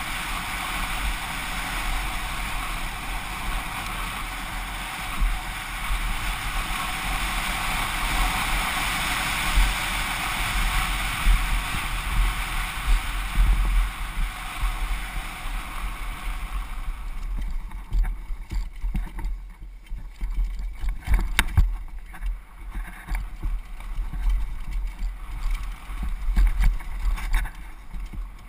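Wind rushing over the helmet-mounted GoPro's microphone on a fast downhill mountain bike descent, over a heavy low rumble from the bumpy dirt trail. About 17 seconds in the rushing falls away and the sharp knocks and rattles of the bike over rough ground take over.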